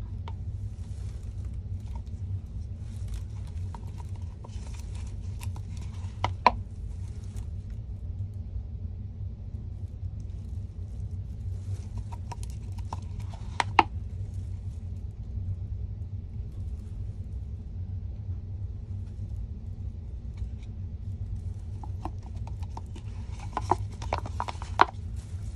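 A silicone spatula scraping and tapping against a plastic mixing cup as resin is poured out of it, with a few sharp clicks, several of them close together near the end. A steady low background hum runs underneath.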